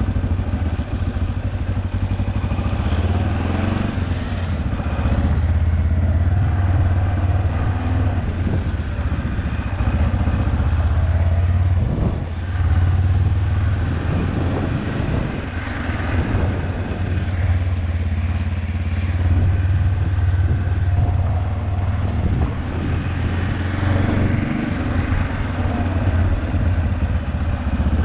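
Kawasaki KLE 400 parallel-twin motorcycle engine running steadily under way. The engine note eases off and picks up again a few times as the throttle changes.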